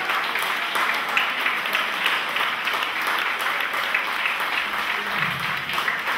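Applause from a crowd, many hands clapping steadily.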